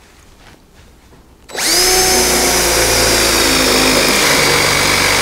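DeWalt cordless drill driving a 35 mm Forstner bit, boring a cup-hinge recess into a cabinet door through a drilling jig. It spins up about a second and a half in and then runs steadily at speed.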